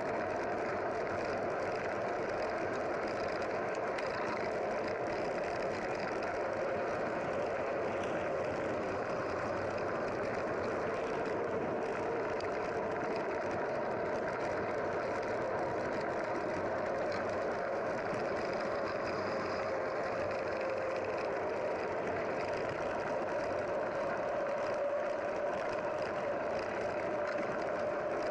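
A vehicle engine running steadily, an unbroken drone with a faint tone that drifts slowly in pitch.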